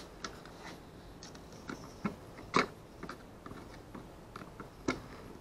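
Scattered small clicks and taps of a hand tool and small nut-and-bolt hardware being handled on a plastic fish-finder mount. A sharper knock comes about two and a half seconds in, and another near the end.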